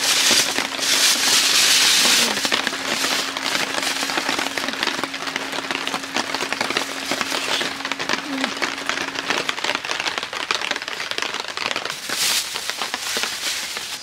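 Food sizzling and crackling in a hot pan on a camp stove, loudest in the first two seconds, over a steady low hum that stops about two-thirds of the way through.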